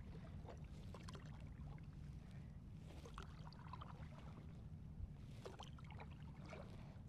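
Quiet splashing and dripping of paddle strokes in calm water, small irregular drips and plops throughout, over a steady low wind rumble on the microphone.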